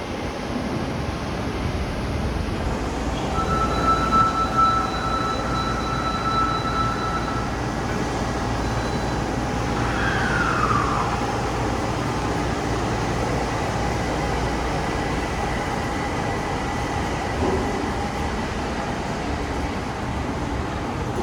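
Osaka Metro subway train moving at a platform: a steady rumble with motor whines, one of which falls in pitch about ten seconds in.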